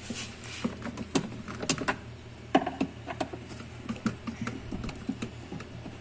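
Irregular small clicks and ticks of a hand screwdriver working screws out of the plastic rear cover panel in a no-frost fridge's freezer compartment, over a low steady hum.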